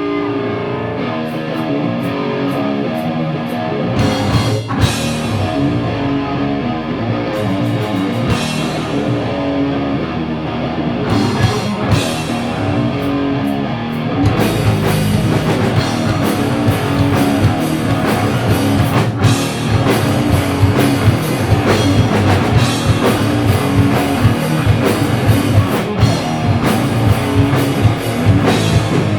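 Live stoner-metal band playing: distorted electric guitar riffing with occasional drum and cymbal hits, the full drum kit coming in about halfway through and the playing growing louder and denser.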